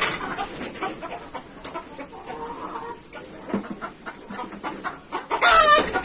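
Brown hens clucking, with a louder call near the end that falls in pitch.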